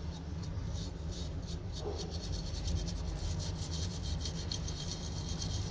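Small brush scrubbing a phone motherboard in quick repeated strokes, several a second, cleaning off traces of water damage. A steady low hum runs underneath.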